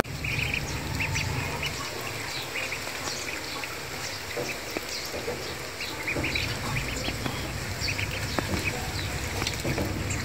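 A group of ducklings peeping: many short, high calls overlapping throughout, over a faint low background hum.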